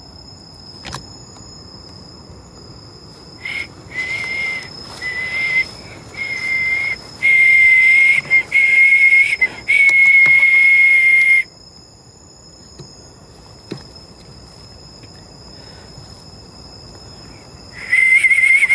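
A high, steady whistling tone on one pitch. It starts and stops in short stretches, then holds unbroken for a few seconds before cutting off abruptly about eleven seconds in, and returns briefly near the end.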